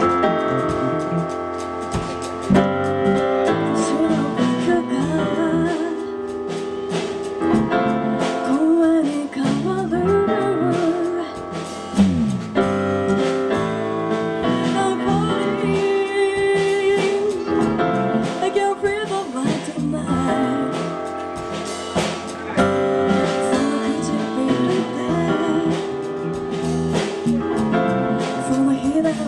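A live band of drums, bass, piano, keyboard, trombone and saxophone playing a song, with a woman singing over it.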